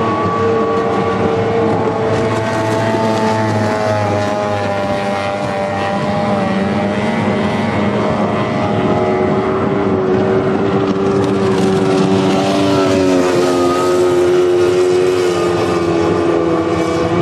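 Racing outboard motors running at high speed: a steady, loud engine whine with several pitches at once, some sinking slightly as boats go by. It gets brighter toward the end as a boat runs in close.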